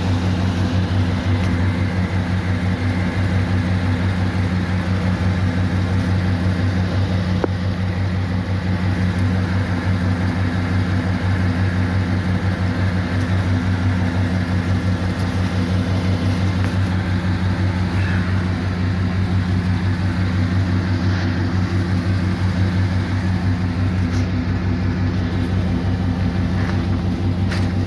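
2011 GMC Sierra engine running at a steady speed with no revving. The truck has a misfire and a reduced-engine-power fault.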